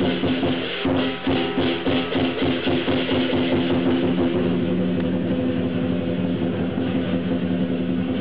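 Lion dance percussion: a drum beaten with clashing cymbals and a gong. Fast, dense strokes for the first few seconds, then they merge into a steady ringing din.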